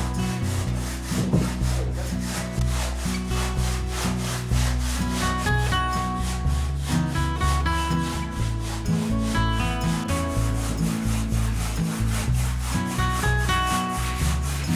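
Handsaw cutting through a stone wall: a steady run of even, rasping back-and-forth strokes, the blade biting easily into the soft stone.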